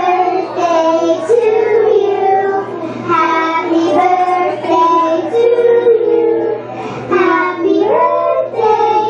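A group of young girls singing a song together, holding long notes.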